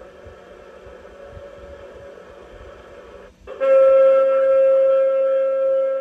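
A sound-effects module playing recorded horn sounds through a small test speaker. A quieter horn-like recording with background noise runs first. After a brief break about three seconds in, a loud steady horn blast on one held pitch starts and carries on.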